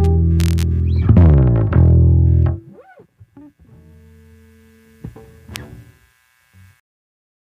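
Yamaha ERB 300 II electric bass playing a sustained low note, then sliding down in pitch about a second in, with a loud final note that is cut off by muting about two and a half seconds in. A few faint soft notes and a short sharp pluck follow.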